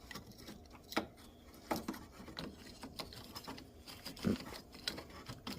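Scattered light clicks, taps and rustles of parts being handled by hand, with a louder knock about four seconds in.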